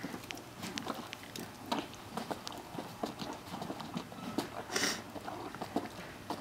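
A horse chewing and mouthing a large treat, with irregular crunches and clicks of teeth as he struggles with a piece stuck in his mouth. A short breathy burst comes a little before three-quarters of the way through.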